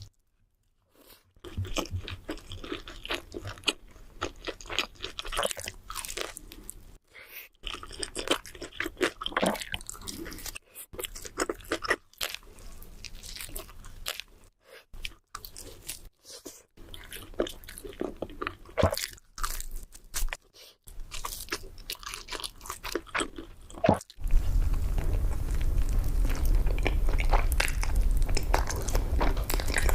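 Close-miked eating sounds: crunchy bites and wet chewing of fast food, in quick, irregular crackles. About 24 seconds in the sound cuts to another clip with a steady low hum beneath the chewing.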